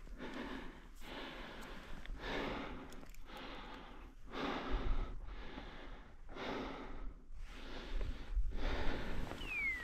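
A person breathing hard close to the microphone, with a loud breath roughly once a second. A short falling whistle comes near the end.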